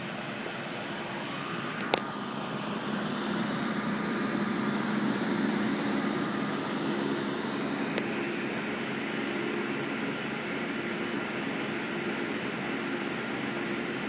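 1989–90 Trane Weathertron packaged heat pump running: a steady hum with the rush of its fan-blown air. Sharp clicks come about two seconds in and again about eight seconds in.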